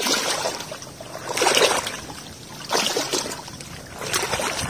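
Water sloshing and swishing as a person wades waist-deep through a flooded field of floating plants, one surge with each stride, about four in all, evenly spaced.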